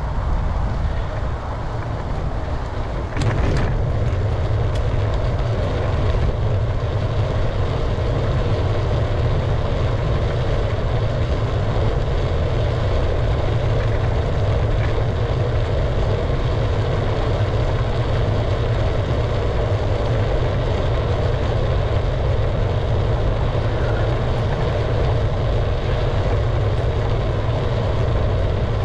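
Steady rushing of wind over the microphone and bicycle tyres on the road while cycling. About three seconds in there is a single sharp knock, and the rush comes back a little louder after a brief lull.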